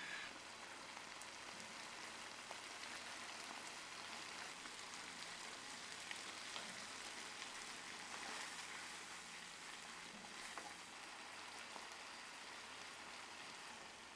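Pork kimchi stew sizzling in a frying pan: a steady, even hiss with a few faint clicks.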